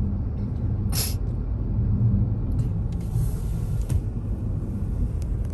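Steady low rumble of a car driving on a snowy road, tyre and engine noise, with a brief hiss about a second in.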